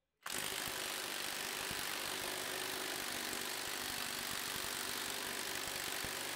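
Milwaukee cordless impact wrench hammering continuously through a stack of square-drive adapters against a torque tester, starting abruptly about a quarter second in as a steady rapid rattle of blows. The stacked adapters choke its output to only about 80 foot-pounds, which the operator puts down to the 1/4-inch adapter in the stack.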